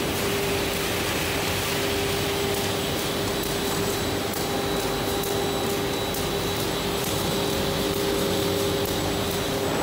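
Abrasive-belt wire rod polishing machine running: a steady mechanical whir of spinning belts and rollers with a constant hum tone, and faint irregular ticks.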